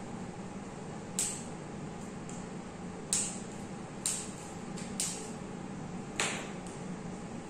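A handful of sharp, short clicks at irregular intervals over a steady low hum.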